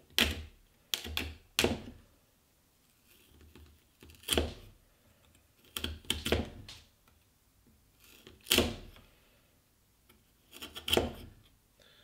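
Chisel pushed by hand into pine, splitting off the waste of a cross halving joint: about nine sharp cracks and snaps, irregularly spaced, as chips break away.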